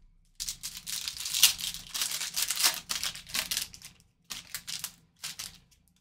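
Foil trading card pack crinkling as it is handled and torn open, followed by a few short rustles near the end.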